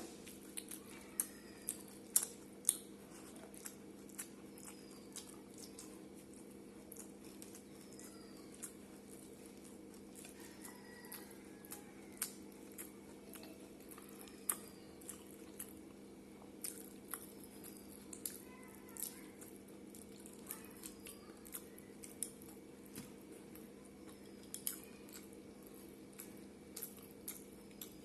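A person eating rice and curry up close: irregular wet mouth clicks and smacks of chewing, some louder near the start, over a steady low hum.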